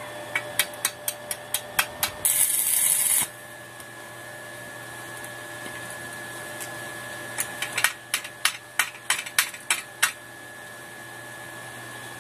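Arc welding on a steel motorcycle swing arm: a run of sharp hammer taps on the metal, then the welding arc crackling and hissing for about a second. After a quieter stretch with a faint steady high whine, another run of about ten quick taps follows.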